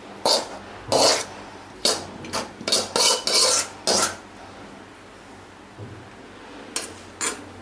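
A metal spoon scraping against a cooking pot and bowl, about eight short strokes in the first four seconds and two more near the end, as part-boiled rice is spooned back into the pot over the chicken.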